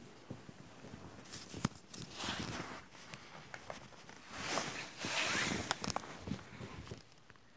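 Rustling and handling noises with scattered sharp clicks, loudest in two stretches around two and five seconds in.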